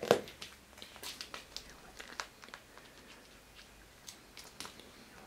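A cat biting and gnawing a hard plastic stick, with irregular clicks and scrapes of teeth and claws on the plastic. There is a sharp knock right at the start.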